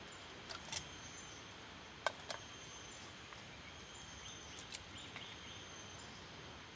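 Steady high-pitched insect trilling in the background, with a few sharp clinks of a spoon against metal camping cookware, the loudest about two seconds in.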